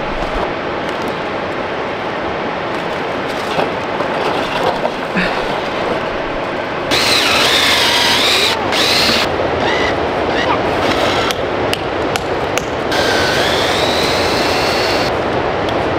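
Cordless drill boring tap holes into sugar maples. Its whine comes in short runs starting and stopping sharply about seven and nine seconds in, then a longer run from about thirteen seconds in with its pitch rising. A steady rushing noise lies underneath throughout.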